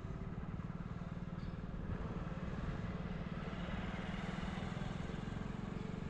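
A small motorcycle-type engine running steadily while riding along a road, with road and wind noise.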